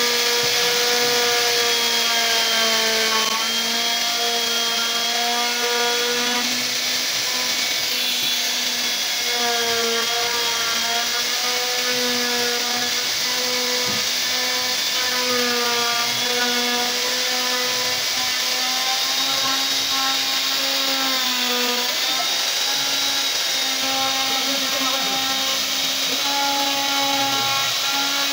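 Electric plunge router running steadily with a small carving bit, cutting a pattern into a wooden board. A continuous high whine over hiss, its pitch sagging slightly now and then as the bit is pushed through the wood.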